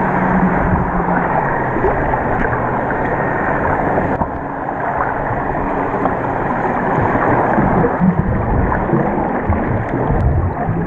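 Muffled underwater noise picked up through a camera's waterproof housing: a dense, steady rushing with a low hum underneath, and a few knocks near the end.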